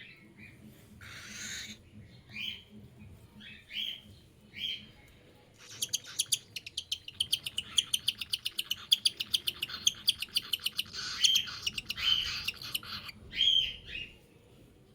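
Cockatiel chick calling while being hand-fed from a syringe: a few short chirps, then from about six seconds a fast, even run of raspy pulses, roughly nine a second for four or five seconds, the rhythmic begging call of a feeding chick, ending in a couple of hissy calls.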